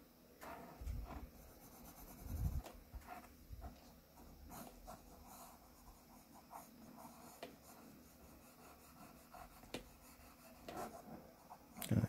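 Graphite pencil scratching on drawing paper in short, faint sketching strokes, with two soft low thumps in the first few seconds.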